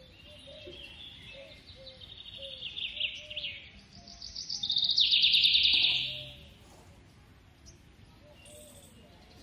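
Rapid, high-pitched chirping trills that build up and are loudest about five to six seconds in, then stop, with softer, lower chirps repeating underneath.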